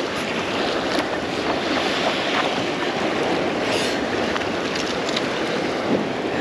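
Ocean surf washing onto a sandy beach, a steady rushing noise.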